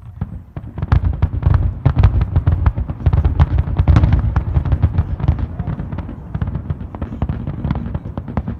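Fireworks display: a dense, rapid barrage of overlapping booms and sharp cracks, loudest in the middle and thinning out toward the end.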